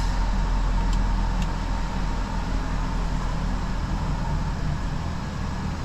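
Audi Q7's petrol engine idling steadily after a tune-up with new spark plugs, running clean with no misfire.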